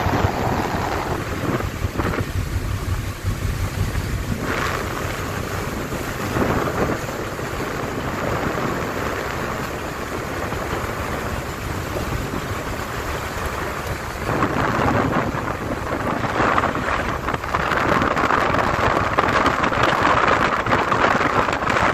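Steady rushing wind buffeting the microphone, with water noise, on the deck of a tug underway. It grows louder and more hissy about two-thirds of the way through.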